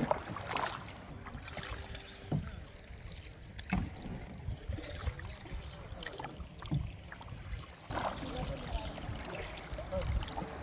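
Kayak paddling: paddle blades dipping and splashing in shallow creek water, with a few sharp knocks spread through, and faint voices near the end.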